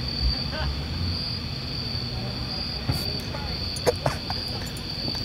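Crickets chirping in a steady high trill that swells and fades now and then, with a few sharp clicks about three and four seconds in.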